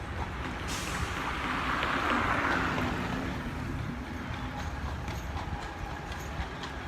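Street traffic: a vehicle passes, rising sharply just under a second in, loudest around two seconds, then fading, over a steady low rumble.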